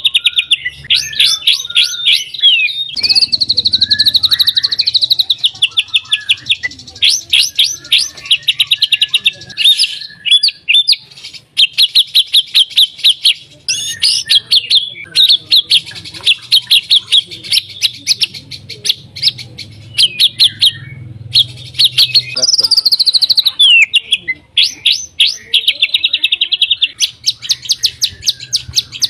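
White-rumped shama singing a loud, fast, varied song. It is made of rapid rattling runs of repeated notes (the 'kretekan' that shama keepers prize), broken by whistled sweeps that rise and fall, with brief pauses between phrases.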